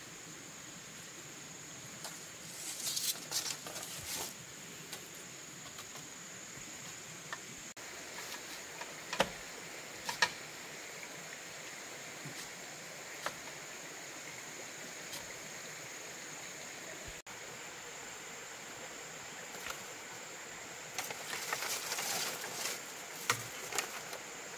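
Dry split bamboo slats rustling and knocking as they are handled and stepped on: a rustling clatter about three seconds in, two sharp knocks around nine and ten seconds, and another run of rustling near the end. Under it, a steady high insect drone.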